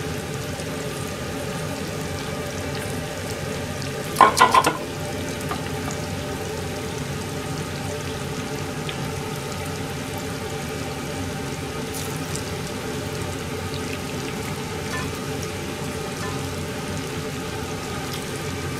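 Chicken karaage deep-frying in a pan of oil: a steady, even sizzle and bubbling. A quick run of sharp clicks comes about four seconds in.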